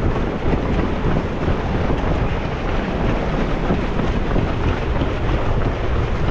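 Strong wind buffeting the microphone: a loud, steady rumbling rush.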